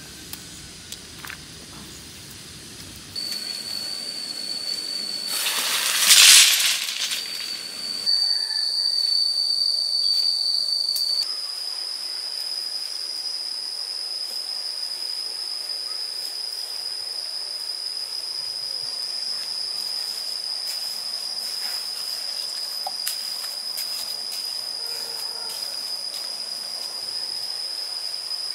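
Insects calling in the forest, a steady high-pitched drone that sets in a few seconds in and holds. A loud hissing burst lasts about two seconds near the six-second mark, and faint clicks are scattered through the rest.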